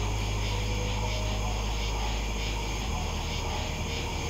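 Low, steady ambient drone of a suspense film score, its lowest tones shifting about three seconds in.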